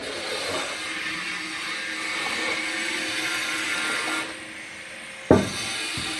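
A machine running with a steady hum and hiss. It drops away about four seconds in, then a sharp loud knock comes, a smaller thud follows, and the running sound resumes.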